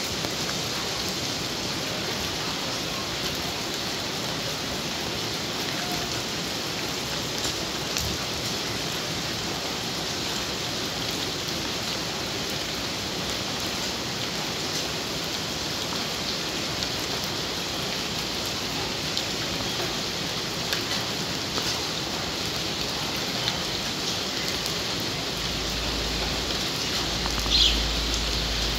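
Steady rainfall, an even hiss with scattered faint drips, in a long spell of continuous rain. Two short high chirps sound near the end.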